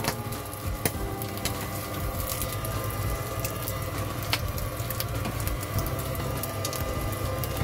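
Spatula clicking and scraping against a nonstick frying pan and a steel plate as cooked flatbread is lifted out, with sharp taps about a second in and again near the middle, over a steady low hum.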